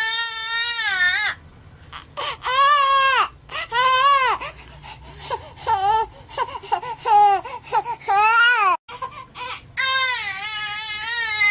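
A baby crying: long, high, sustained cries at the start and again from about ten seconds in, with shorter broken cries and gaps in between.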